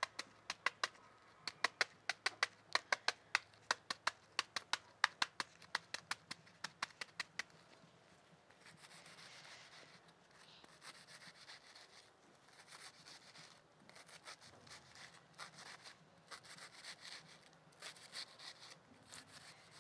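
A kitchen knife cuts a white onion held in the hand. For about the first seven seconds each stroke gives a crisp click, about four a second. After that the strokes turn into softer, scratchy crunching as the slicing goes on.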